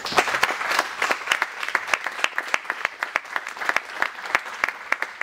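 Applause: many people clapping by hand, dense and steady.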